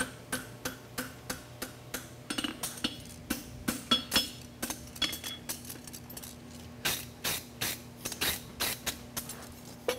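Hand hammer striking a red-hot steel horseshoe on an anvil as a farrier bends the concave bar around the horn and flattens it on the face. The blows come at about two to three a second, each a sharp metallic clank with a brief ring.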